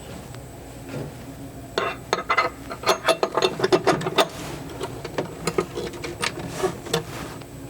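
Hand tool clicking as the nuts and screws of a new boat steering base are tightened into the console: a dense run of quick metallic clicks starting about two seconds in, then slower, scattered clicks.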